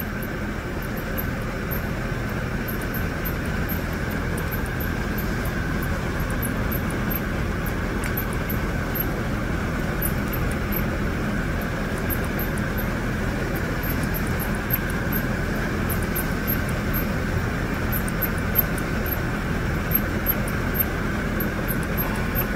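Worn bearing in a Toyota Hilux alternator, off the engine, hissing and grinding as its pulley is turned by hand, with scattered faint high ticks over a steady noise; the bearing is worn and the alternator needs repair.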